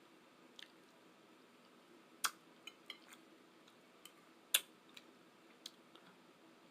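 A person eating a breakfast of salmon, grits and eggs: quiet chewing and mouth sounds broken by scattered sharp clicks and taps, the two loudest about two and four and a half seconds in.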